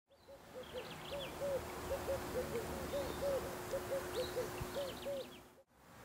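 Birds calling: a low, arched note repeated about three times a second with faint high chirps, over a steady hum. It all cuts off suddenly near the end.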